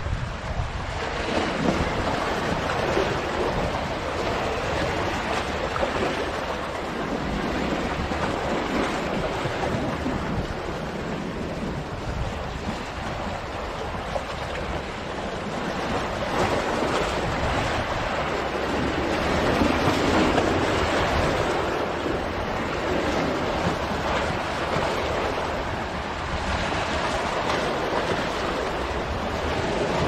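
Black Sea waves washing in and breaking over a boulder breakwater: a continuous roar of surf that swells and ebbs as the waves come in, loudest about two-thirds of the way through, with wind rumbling on the microphone.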